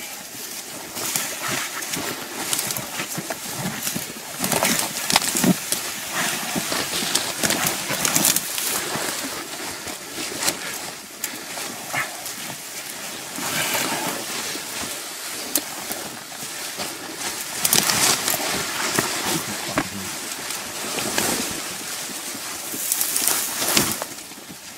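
Ferns, grass and scrub rustling and crackling against clothing and the camera as people push through dense vegetation on foot, in irregular swishes and crackles.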